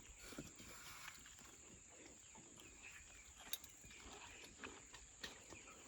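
Near silence: faint outdoor ambience with a steady high-pitched hiss and a few faint ticks.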